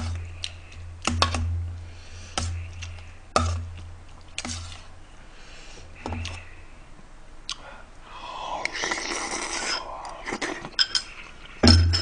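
A metal spoon clinking and scraping against a thin metal cooking pot again and again as food is scooped out, with light knocks. A noisier stretch of eating sounds comes about two thirds of the way in.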